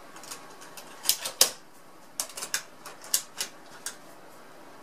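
Sharp clicks and knocks from handling a metal UV exposure unit for a PCB: a loud cluster about a second in, then a run of quicker clicks over the next two seconds.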